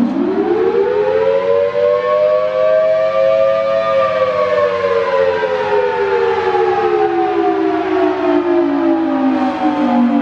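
Federal Signal Thunderbolt 1000AT outdoor warning siren sounding the attack signal, a loud two-note wail from its 5/6-port chopper. The pitch rises over about four seconds, then falls slowly for the next six.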